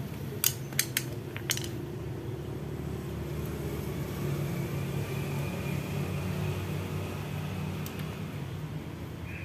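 A few light clicks in the first two seconds and another near the end as a small metal plug is worked into a rubber emission hose, over a steady low mechanical hum.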